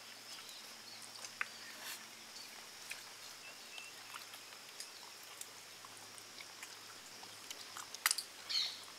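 Faint close-up eating sounds: chewing and sucking at cooked mutton marrow bones, with scattered small clicks and a couple of sharper clicks near the end.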